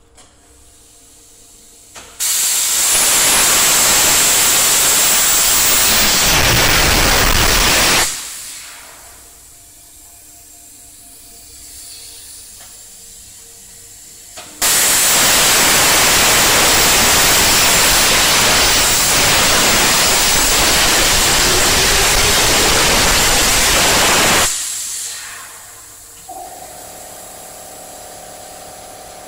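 Hypertherm Max200 air plasma torch cutting steel: two long, loud stretches of steady hiss. Each starts suddenly, the first about 2 seconds in and the second about 14 seconds in, lasts several seconds and then fades away. A quieter machine hum runs between the cuts, and a steady tone comes in near the end.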